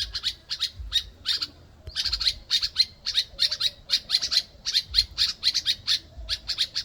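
Two small African birds giving a rapid, relentless series of short, high calls, about four to five a second, with a brief pause about one and a half seconds in.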